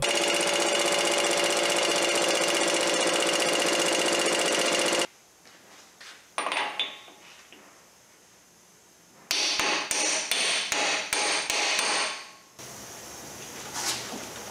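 Cordless impact wrench hammering on a tight front axle hub nut in two runs, about five seconds and then about three seconds, with a few light clanks of the socket in the pause between.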